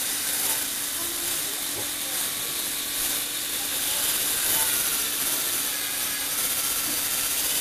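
Lego Technic electric motor and gear train running steadily as the turntable rotates the model car, a constant hum under an even hiss.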